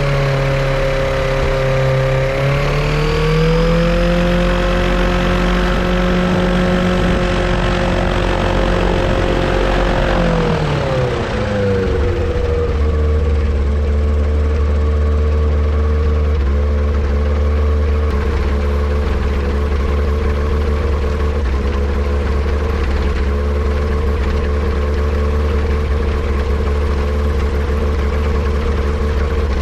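Yamaha Apex four-cylinder engine on a Kitfox light airplane running at a raised speed, dipping briefly and picking back up, then throttled back about ten seconds in and settling into a steady idle for the rest of the time.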